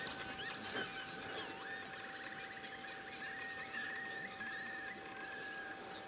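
A flock of wild geese calling while grazing: a few quick calls gliding up and down in the first second or two, then runs of short chattering calls.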